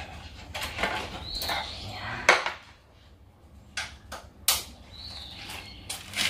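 Metal clinks and knocks of a steel hex key working bolts loose on a scooter's steel frame, a few separate strikes with the loudest about two and four and a half seconds in. Two short high squeaks come in between.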